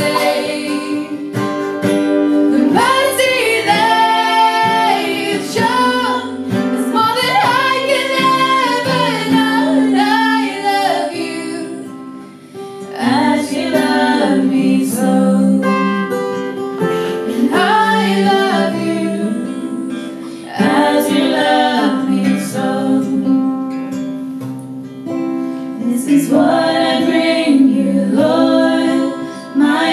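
Women singing a slow worship song in harmony, accompanied by acoustic guitar, with a short pause between phrases about twelve seconds in.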